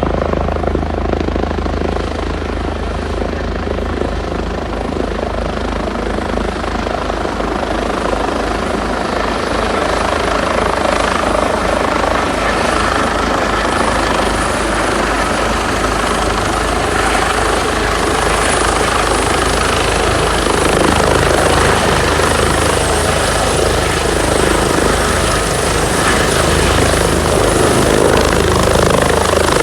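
Emergency medical helicopter coming in to land: steady rotor beat with a thin, high turbine whine above it, growing somewhat louder in the second half.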